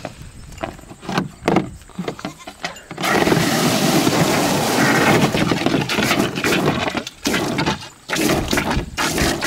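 Garden hose spurting and then gushing water onto the hard plastic floor of a kiddie pool, splashing. It comes in short spurts for about the first three seconds, then runs in a steady splashing rush.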